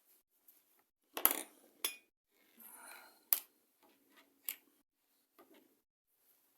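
Several light metallic clicks and clinks from small metal pieces being handled while a leather strap is hand-stitched with two needles, with a short rustle in the middle.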